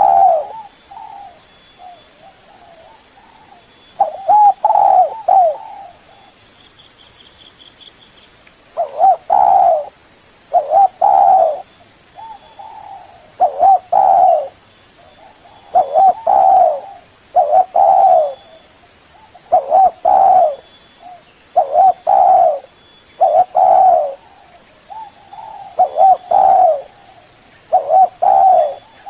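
Spotted dove cooing in repeated phrases of low coos. After an early call and a pause, the phrases come about every two seconds.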